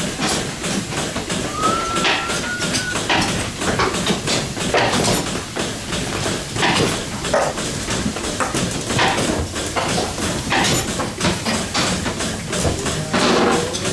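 Goats in a milking parlour calling amid repeated metal knocks and clatter, with a short squeak about two seconds in.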